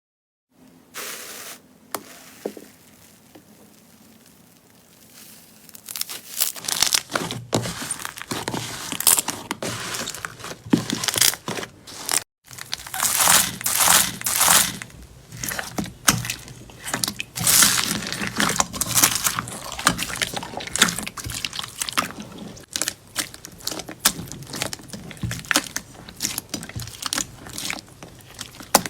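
Slime being squeezed and pressed by hand, a dense run of sticky crackles and crunchy pops. It is faint at first and fills out about six seconds in, with a brief break midway.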